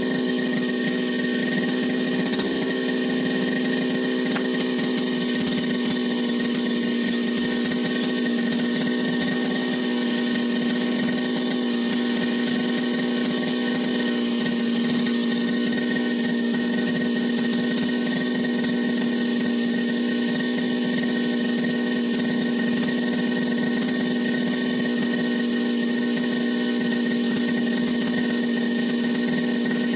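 Brush cutter's small engine running at a steady, unchanging speed.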